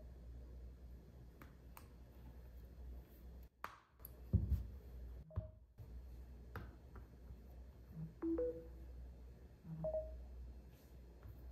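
Quiet handling sounds: scattered light taps and clicks with a soft thump about four seconds in, and a few short electronic beeps at two or three pitches, one of them a quick two-note rising pair about eight seconds in.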